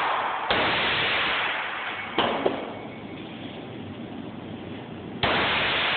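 Three shots from a Hi-Point 9mm carbine, about half a second, two seconds and five seconds in, each sudden and loud with a long echo off the concrete walls of the indoor range lane.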